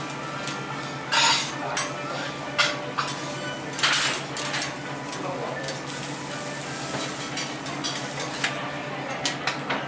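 Metal spatulas clinking and tapping on a hot teppanyaki iron griddle, with food sizzling on it. A steady low hum runs underneath.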